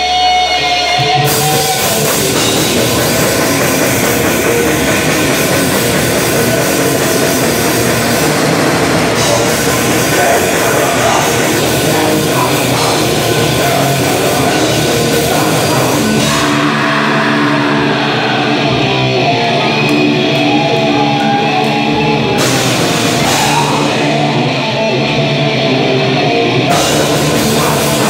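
A live extreme-metal band playing loud distorted electric guitars, bass and a drum kit, with a vocalist singing into the microphone. The full band comes in about a second in, and twice in the second half the cymbals drop back while the guitar riff carries on.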